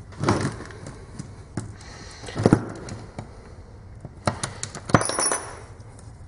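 Screwdriver working at an angle grinder's metal gear head and housing during disassembly: a string of separate metallic clicks and clinks, with a brief thin high ring about five seconds in.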